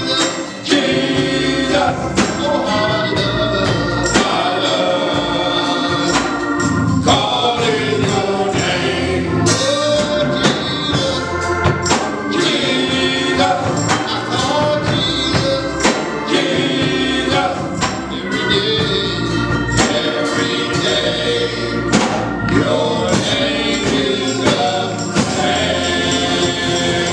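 Gospel choir singing with instrumental accompaniment and a steady percussive beat.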